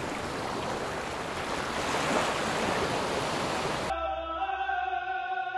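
Ocean surf breaking on a shore, a steady rush of waves; about four seconds in it cuts suddenly to a mariachi band with trumpets and violins sounding a held note.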